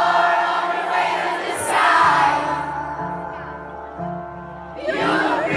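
Live concert heard from within the audience: a singer and the crowd singing along over the band. About halfway through it drops to quieter held notes from the band, and the loud singing comes back near the end.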